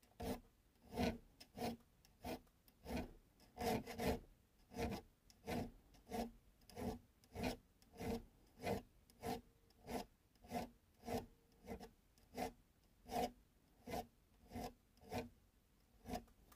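A triangular hand file cutting file-work notches into the spine of metal slip-joint knife liners clamped in a vise: steady rasping strokes, a little under two a second.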